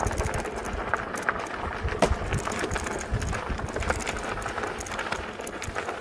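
Bicycle being ridden along a path, rattling with irregular sharp clicks over a low rumble of wind on the microphone.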